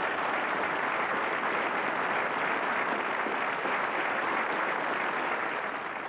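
Audience applauding: a dense, steady burst of clapping that begins to fade out near the end.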